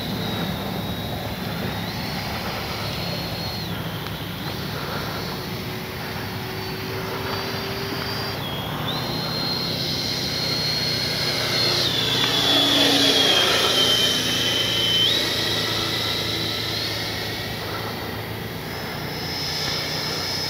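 Electric ducted-fan whine from a Freewing Mirage 2000 RC jet's 80 mm, 12-blade fan in flight. The high whine steps up and down in pitch as the throttle changes. It grows loudest about twelve seconds in, where the pitch falls away.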